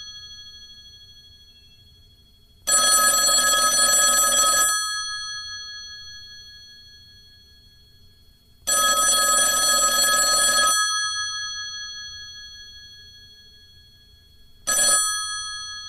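Telephone bell ringing: two rings of about two seconds each, six seconds apart, each followed by the bell's tones slowly dying away, then one short strike near the end.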